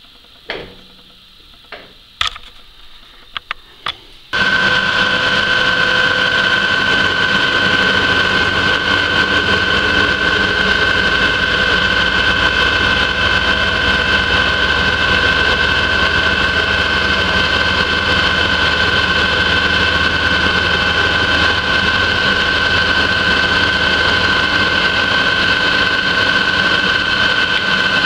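A few light knocks and clicks, then about four seconds in a vertical milling machine's spindle switches on and runs steadily with a high whine while the end mill takes a light skim cut across the end of a threaded rod to make wrench flats.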